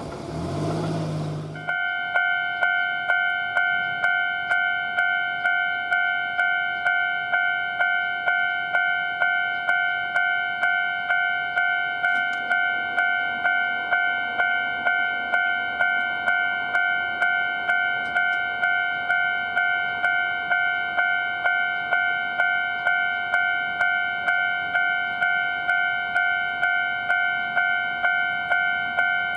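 Japanese level-crossing warning bell ringing its "kan-kan" clang, about two strokes a second, starting suddenly about two seconds in after a short stretch of train noise.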